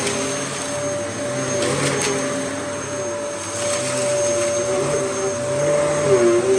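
Dyson DC07 Origin upright vacuum cleaner running under suction: a steady motor whine over a rushing airflow, with lower tones that shift up and down in pitch and dip briefly near the end.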